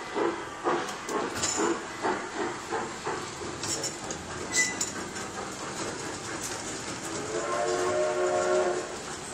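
Mall ride train's steam-locomotive sound effects: chugging puffs at about two a second that fade out after about three seconds, then a steam whistle held for about a second and a half near the end.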